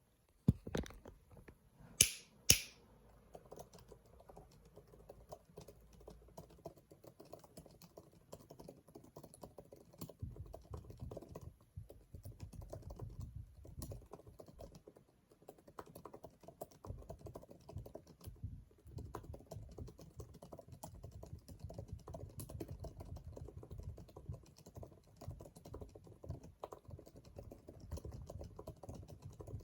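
Fast typing on a high-end mechanical keyboard: a dense run of keystrokes with a deep sound, pausing briefly about halfway through. Near the start come two sharp, loud clicks.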